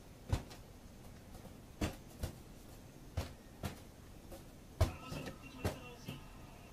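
Rubber balloon being batted back and forth by hand and by a cat's paw: about eight short taps, some in quick pairs.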